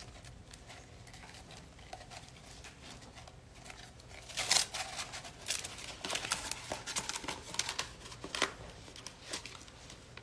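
A rolled sheet of stiff paper being untied, unrolled and handled, rustling and crinkling. The handling is faint for the first few seconds, loudest about four and a half seconds in, then comes in scattered rustles.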